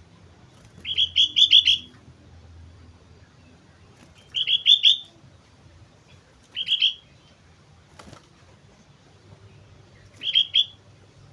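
Sooty-headed bulbul (kutilang) singing: four short bursts of quick, rising chirped notes, each under a second and a few seconds apart.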